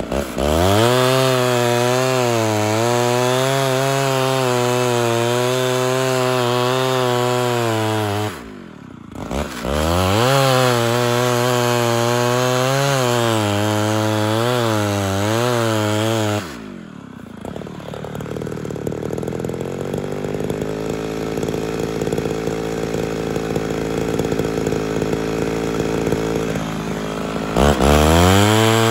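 Ported Homelite Super XL Auto two-stroke chainsaw cutting through a log at full throttle, its pitch wavering as the chain loads up in the wood, with the throttle let off briefly about nine seconds in. About seventeen seconds in it drops to a steady idle for about ten seconds, then revs back up near the end.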